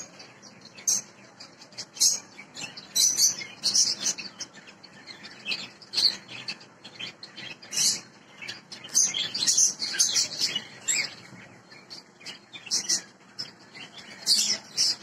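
Small birds chirping: many short, high-pitched calls in quick, irregular succession.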